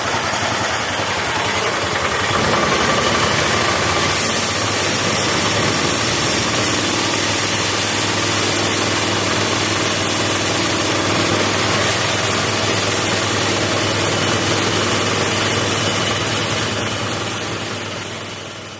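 16 HP engine of a homemade bandsaw mill running steadily. It gets louder about two seconds in and fades out near the end.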